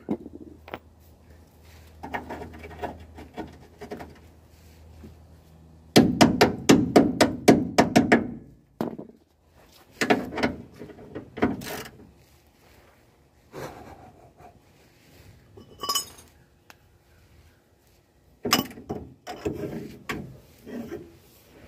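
Metal hand tools clinking against a rusted leaf-spring shackle bolt, with a quick run of about a dozen ratchet clicks about six seconds in, then scattered metal knocks and clinks.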